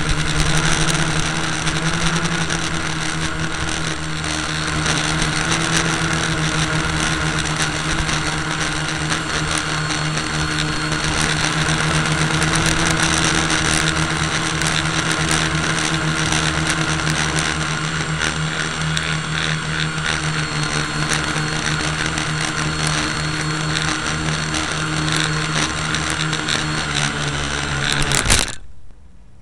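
A motor running steadily with a constant hum, many small clicks and rattles over it. It cuts off abruptly about a second before the end.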